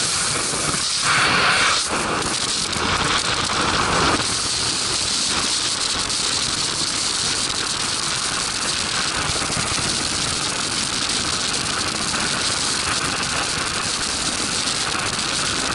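Skydiving freefall wind buffeting a helmet-mounted camera's microphone: a steady, loud rush of noise, with louder gusts about one and three seconds in.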